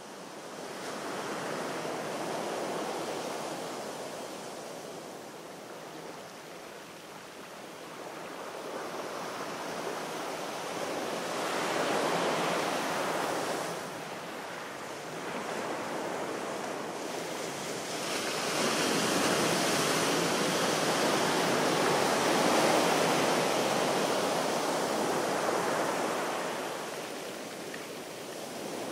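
Sea waves washing onto a shore, the surf swelling and fading in slow surges every several seconds.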